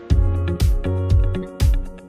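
Electronic background music with a steady beat of about two low thumps a second under sustained pitched notes.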